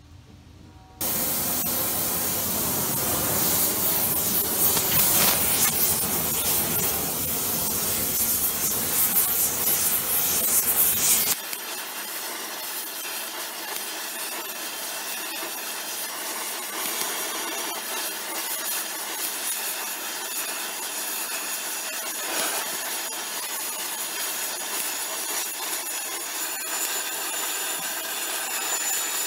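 Gas torch flame hissing steadily as it heats steel horseshoes. The hiss comes on suddenly about a second in; about eleven seconds in it drops a little and loses its low rumble, then carries on evenly.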